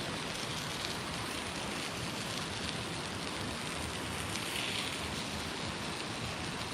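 Campfire with food cooking over it: a steady hiss with faint scattered crackles.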